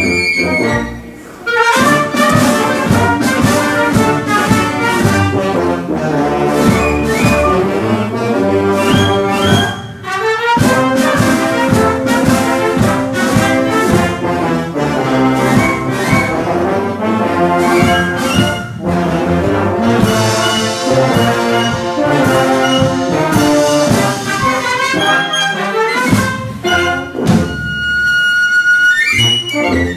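Concert wind band playing, with brass and woodwinds together and a piccolo's high notes above them. The music drops out briefly about a second in and again near ten seconds, and a high held note sounds near the end.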